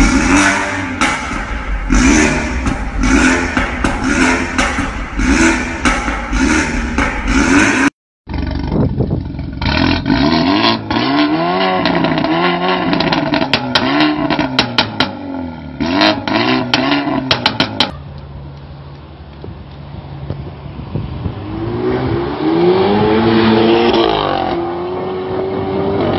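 BMW 428i's turbocharged four-cylinder through an Armytrix valved aftermarket exhaust, revved in quick repeated blips about once a second, with a run of sharp pops between revs. Near the end the car accelerates away, the exhaust note rising in pitch.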